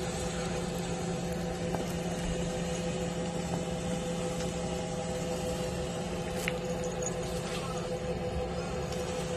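Steady machine hum holding several fixed tones, with a couple of faint ticks.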